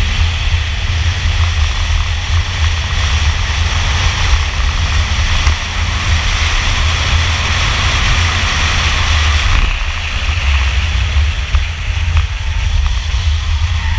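A Camaro Z28's LS1 V8 pulling hard under full throttle, heard from inside the car with wind and road noise. The revs climb to over 6000 rpm, then the throttle lifts suddenly about ten seconds in and the engine drops back as the car slows for a corner.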